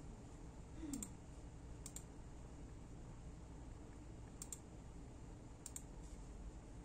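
Computer mouse button clicking: four quick pairs of sharp clicks spread through several seconds, over a faint steady room hum.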